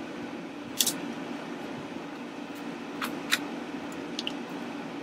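A few short, sharp plastic clicks as a TI-84 calculator's plastic case and a plastic pry tool are handled, the loudest about a second in and two more close together around three seconds in. A steady low hum runs underneath.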